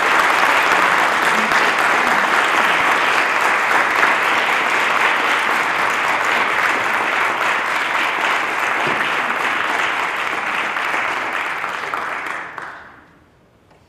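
Audience applauding, a steady dense clapping that fades away about a second before the end.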